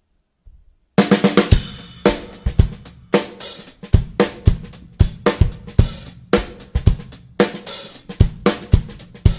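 A drum kit playing a solo intro: a quick run of snare and tom hits about a second in, then a steady beat of kick, snare and cymbal hits.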